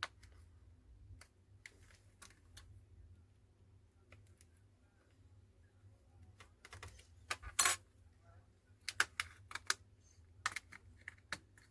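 Irregular small clicks and taps of a prying tool working a smartphone's back cover loose, a few louder clicks bunched together past the middle and again near the end.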